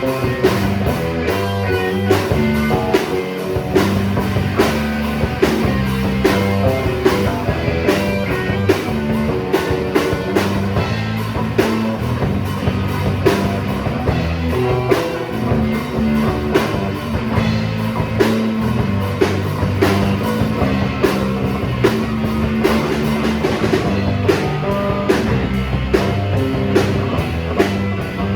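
Rock music with guitar and a drum kit playing at a steady beat.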